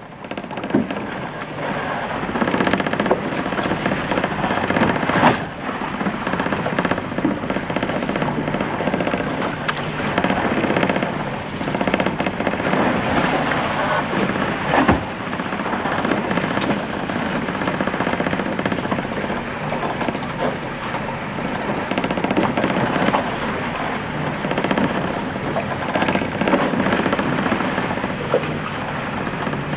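Waves rushing and slapping along a Fountaine Pajot Lavezzi 40 catamaran's hull as it punches into heavy seas, heard from inside the forward cabin: a steady rush of water with a few sharp knocks. There is no heavy slamming from under the bridge deck.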